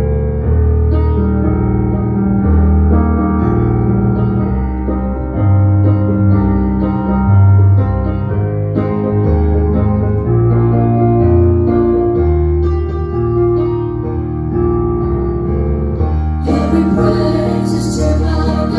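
Worship band playing a song intro: sustained keyboard/piano chords over a heavy bass line. Near the end, drums and cymbals come in and the sound fills out.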